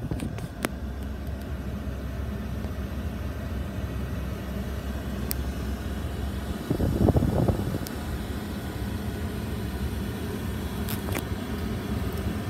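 Ford F-150 pickup idling, heard from inside the cab as a steady low hum and rumble. A louder rumble swells briefly about seven seconds in, and there are a few faint clicks.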